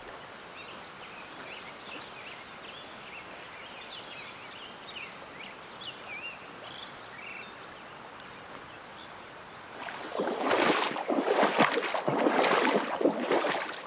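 Steady rush of a river with small birds chirping over it. About ten seconds in, a louder, rougher rush of water close by takes over for about three seconds.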